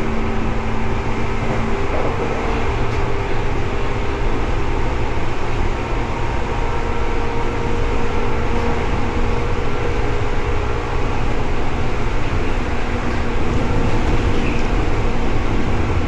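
Seibu 2000 series electric train running, heard from inside the car over its line breaker: a steady rumble of wheels on rail, with several steady humming tones from the traction equipment. One lower hum drops out about two seconds in.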